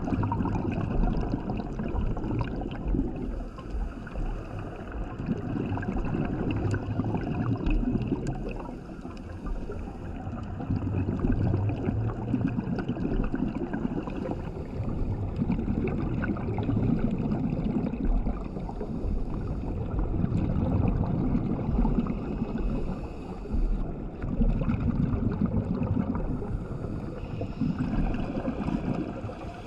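A scuba diver's regulator breathing underwater, with exhaled bubbles gurgling out in surges every few seconds.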